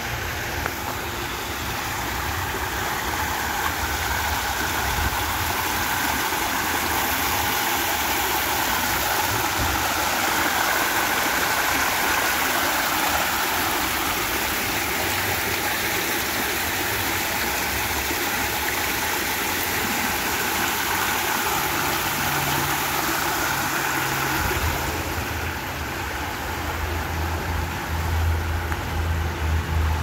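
Water of a man-made rock waterfall rushing and splashing steadily over stones into a shallow pool. A low rumble grows louder near the end.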